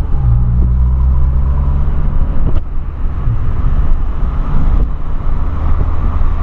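Volkswagen Polo's engine and exhaust heard from inside the cabin while driving, a steady low drone. There is one sharp pop about two and a half seconds in.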